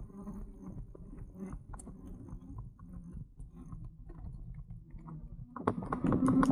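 Low rumble with irregular light ticks and rattles, the riding noise picked up by a camera mounted on a moving e-bike.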